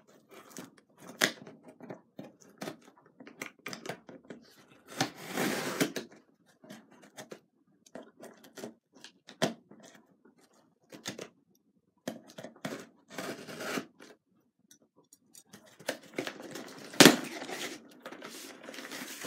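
Scissors cutting open a cardboard shipping box: irregular snips, scrapes and rustling of cardboard, with a louder sharp click near the end.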